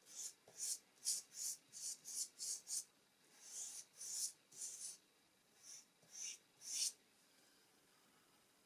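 Soft pastel stick rubbed across paper in a run of short, hissing strokes, about two a second with a brief pause near three seconds in; the strokes stop about seven seconds in.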